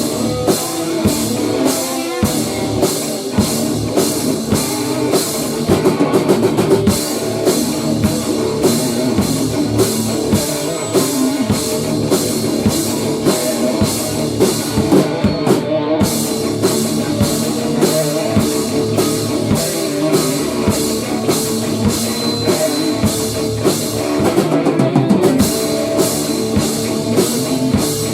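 Rock band playing an instrumental passage in a grunge/hardcore style: guitar and bass over a drum kit, with a steady beat of cymbal hits. The cymbals drop out briefly twice.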